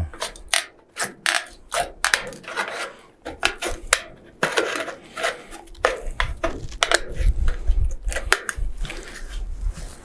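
Hand tin snips taking small bites along the cut edge of a sheet-metal roofing panel, trimming off a burr: a run of irregular sharp snips and clicks, with the sheet scraping and rubbing as it is handled.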